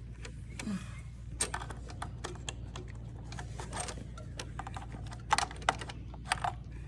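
Irregular light clicks and taps of small metal parts being handled and fitted by hand, getting louder and more frequent after about five seconds, over a steady low hum.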